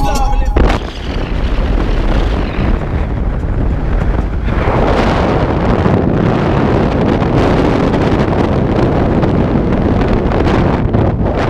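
Wind rushing over the microphone of a camera mounted on the roof of a moving car, a steady noise with a low rumble, growing louder about four seconds in.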